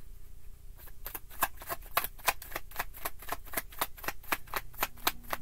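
Tarot deck being shuffled by hand: a quick, even run of card clicks, about six a second, starting about a second in.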